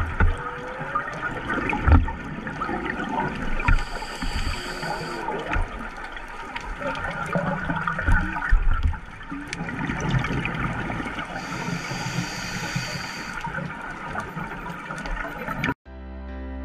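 Whale song recorded underwater, with a rising call near the start, heard through the gurgle and crackle of a scuba diver's exhaust bubbles and two spells of regulator hiss. The underwater sound cuts off near the end and music comes in.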